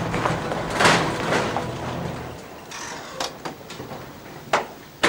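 A door being opened and handled: a few separate clunks and rattles, the sharpest about four and a half seconds in.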